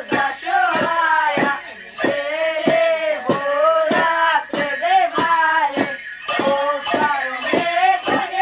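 A voice singing a fast, evenly pulsed folk Christmas tune.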